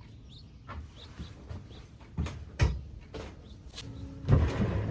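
A series of sharp knocks and clatters, about half a dozen over a few seconds, the loudest near the end, with a few faint high chirps between them.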